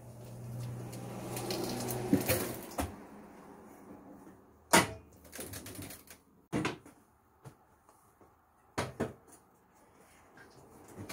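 Handling noises on a motorcycle: a low hum swelling over the first couple of seconds, then a few separate sharp knocks and clunks. The loudest knock comes about five seconds in and a quick double knock near nine seconds.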